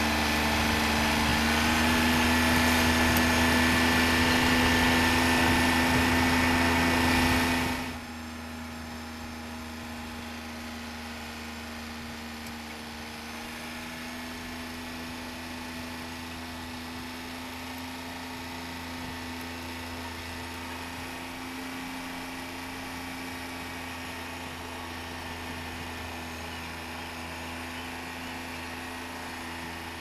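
Compact farm tractor's engine running steadily while pulling a hay wagon. It is louder for the first eight seconds, then drops suddenly to a lower level and runs on evenly.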